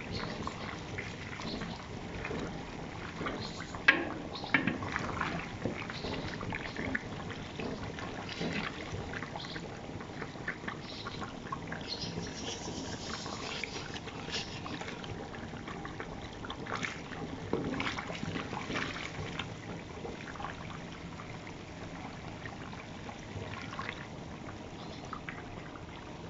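Pork carnitas frying in a large pot of hot lard, a steady bubbling sizzle with many small pops and crackles. A single sharp knock about four seconds in stands out as the loudest sound.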